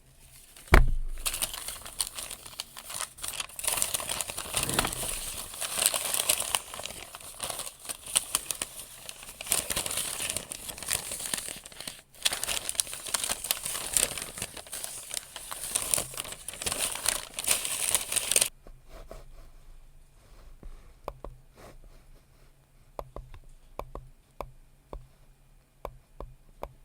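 Paper being crinkled and crumpled close to the microphone, in a dense crackling that starts just after a single knock and stops abruptly about two-thirds of the way through. Light, scattered clicks follow.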